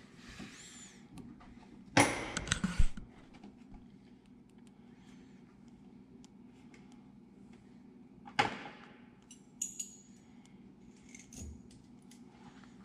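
Handling noise: metallic clinks and clatter, with a loud clatter about two seconds in and another about eight seconds in, and a few light clicks between, over a steady low hum.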